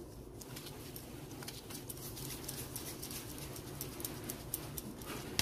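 Hands shaping a ball of kneaded dough: faint, irregular soft taps and clicks over a low steady hum.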